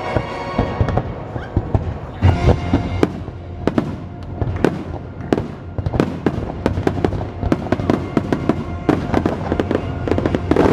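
Fireworks show: a rapid string of firework bursts, cracks and bangs, thickening into a dense volley through the second half, over the show's music soundtrack.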